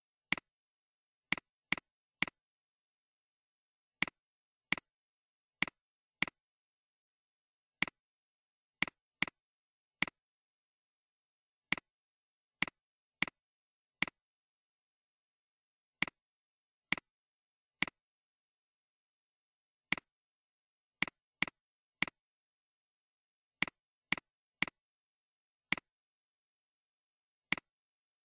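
Computer mouse clicks: about thirty-five single sharp clicks at irregular intervals, often two or three in quick succession, with silence between them.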